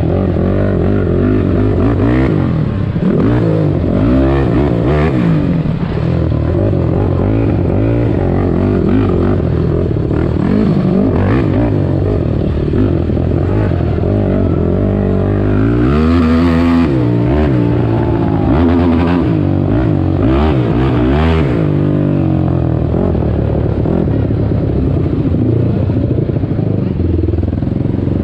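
Onboard sound of a Yamaha YFZ450 race quad's single-cylinder four-stroke engine under hard riding. The pitch rises and falls again and again as the throttle is opened and closed, with occasional knocks and clatter from the machine.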